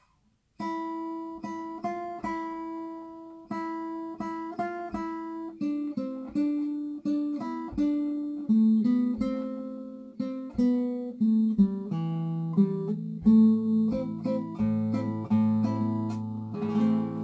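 Wayne W-20 nylon-string classical guitar played fingerstyle: a plucked single-note melody begins about half a second in, and from about two-thirds of the way through, lower bass notes ring under it.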